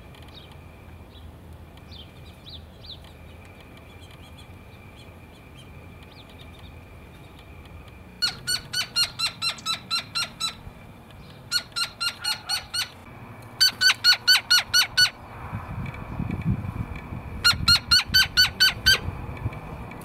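Gila woodpecker giving its yip call in four rapid series of about eight to twelve notes each, roughly five notes a second, with fainter high chips from small birds in the first few seconds.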